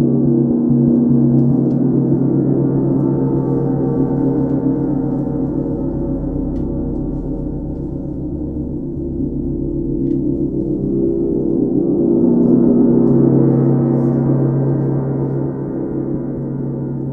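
32-inch UFIP brass symphonic tam-tam played with a felt mallet, ringing in a dense, sustained wash of low, overlapping tones. The sound swells about two-thirds of the way through and eases off near the end.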